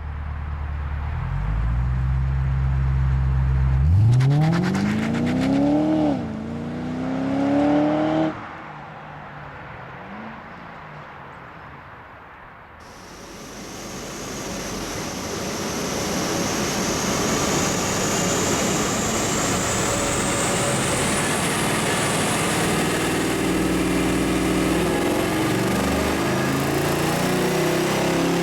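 HSV Gen-F Senator Signature's 6.2-litre V8 on its stock exhaust idling, then a hard take-off: the revs climb steeply, dip once at a gear change about six seconds in, climb again and fall away as the car pulls off. After a sudden cut, the engine runs loud and steady on a dyno, with a high whine that rises slowly.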